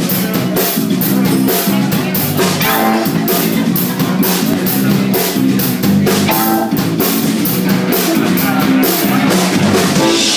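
Live band playing: a drum kit keeping a fast, steady beat of cymbal and drum hits under amplified electric guitars.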